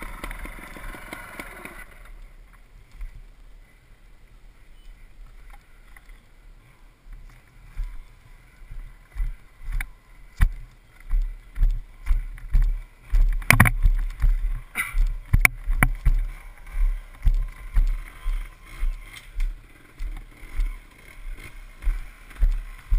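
Mountain bike jolting over a rough, stony dirt trail: low thuds and bumps on the camera mount, a fairly regular jolt about every second in the second half, and a few sharp rattling knocks from the bike.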